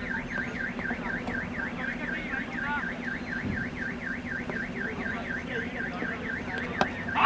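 An electronic alarm warbles steadily, its pitch rising and falling about four times a second, over a low steady hum. Near the end a single sharp knock is heard as the cricket bat strikes the ball.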